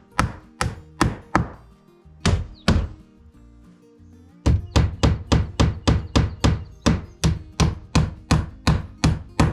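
Hammer driving nails through a sheathing panel on a building's gable end. A few irregular blows come first, then from about halfway a steady run of about three blows a second.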